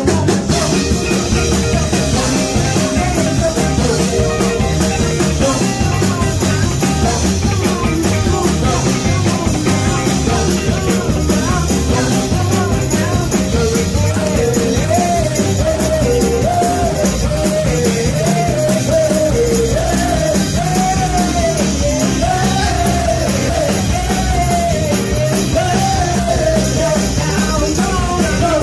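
Live rock-and-roll band with drums, bass and electric guitar playing loudly, a woman singing over it into a microphone. The band comes in all at once at the start.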